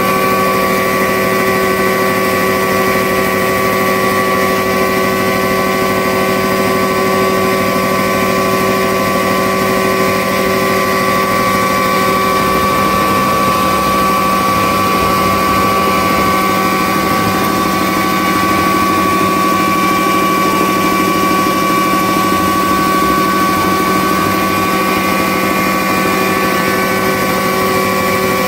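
Multipurpose grinding mill running steadily while grinding coriander seeds: a constant mechanical whine made of several steady tones over a rough grinding noise.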